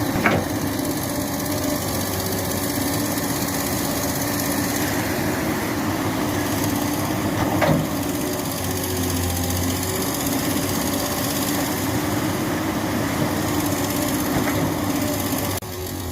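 Excavator's diesel engine running steadily while loading stone, with a sharp knock about halfway through.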